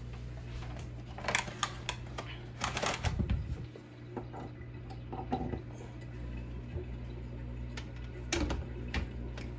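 Clinks and knocks of a slow cooker's pot and lid being set into place: a cluster of clatter in the first three seconds, a few lighter taps, then two more knocks near the end.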